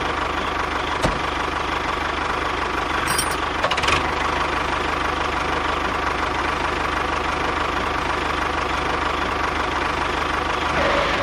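The small engine of a DIY mini tractor running steadily, with a sharp click about a second in and another about four seconds in.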